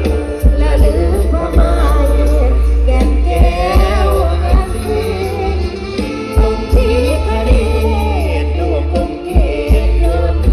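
Isan (northeastern Thai) stage band music with singing over a heavy bass line and a steady drum beat.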